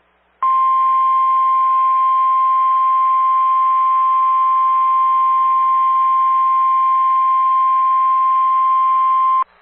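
NOAA Weather Radio's 1050 Hz warning alarm tone: one steady, unwavering beep held for about nine seconds over faint radio hiss, starting and stopping abruptly. The tone is the alert that a warning message is about to be broadcast, here a severe thunderstorm warning.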